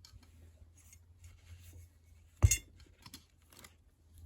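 A single sharp metallic clink a little past halfway, followed by a couple of faint clicks, as small metal hand tools are handled on a workbench.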